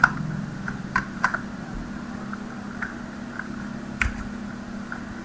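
Scattered keystrokes on a computer keyboard, sparse clicks roughly a second apart, the sharpest near the start and about four seconds in, over a low steady hum.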